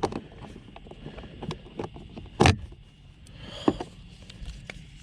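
Scattered clicks and knocks of a hand tool and plastic parts being handled while a screw is worked in by hand, with a sharper knock about two and a half seconds in and another near four seconds.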